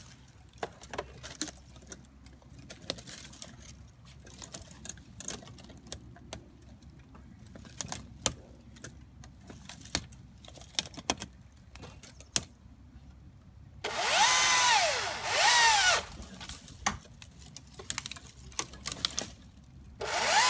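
Battery-powered pruning chainsaw with a 12-inch bar run in short trigger bursts: its electric motor whine rises, holds and winds down, twice in quick succession about two-thirds of the way in and again near the end. Before that, scattered sharp clicks and snaps.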